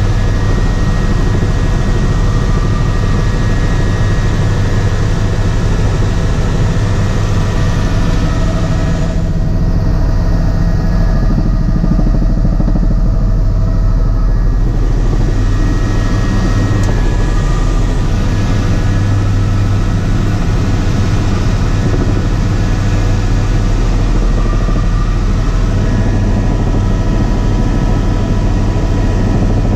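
Helicopter cabin noise in flight: the rotor and engine drone loud and steady, with strong low tones. For about five seconds around the middle the sound turns muffled, losing its upper hiss.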